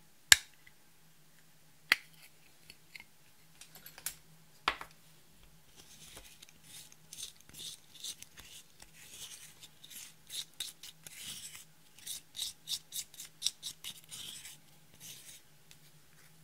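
A few sharp plastic clicks as a glitter eyeshadow compact is opened and handled, then a plastic spatula scraping the pressed glitter out of its pan in quick scratchy strokes, two to three a second.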